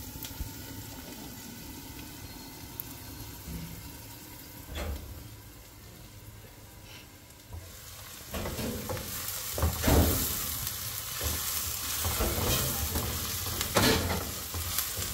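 Chopped onions sizzling as they fry in oil in a metal pot. From about halfway on, a wooden spoon stirs them, knocking and scraping against the pot, and the sizzle grows louder.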